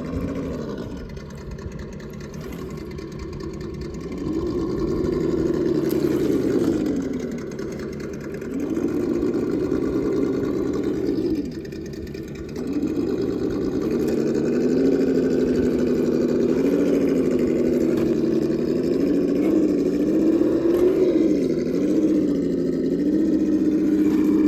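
Electric motor and geared drivetrain of a Traxxas Defender RC rock crawler whining, the pitch rising and falling as the throttle is worked, with short letups about eight and twelve seconds in.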